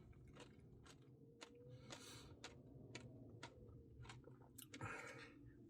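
Faint chewing of a Blizzard ice cream, with scattered soft mouth clicks and two brief wetter smacking bursts.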